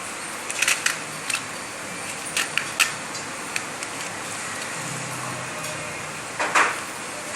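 Scattered sharp clicks and crackles of the kit's breadboard and packaging being handled, the loudest about six and a half seconds in, over a steady background hum of traffic or a fan.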